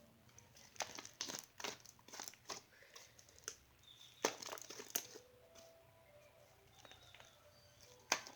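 Butter slime being kneaded with Model Magic clay by hand, giving clusters of sticky crackles, clicks and small pops, with a quieter stretch midway and one sharp pop near the end.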